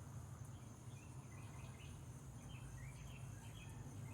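Faint bird chirps, a scatter of short high notes, over a low steady background hum.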